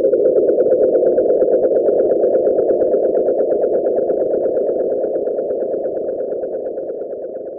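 Nightjar churring: a steady, rapidly pulsing trill that fades out gradually over the last few seconds.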